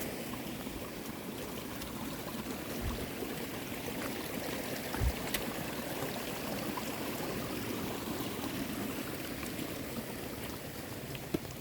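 Steady rush of heavy rain and runoff water, with a couple of faint low thumps.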